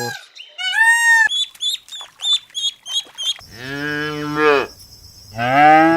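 A bird's repeated honking calls, about seven short calls in the first half, then a cow mooing twice in long low moos.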